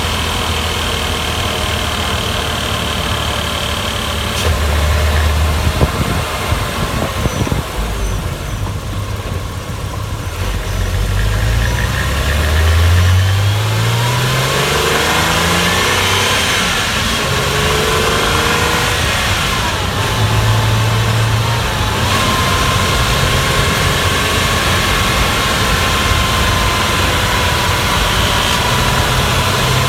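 Porsche Boxster S 3.2-litre flat-six engine running as the car is driven. The revs rise over about three seconds around the middle, then hold steady.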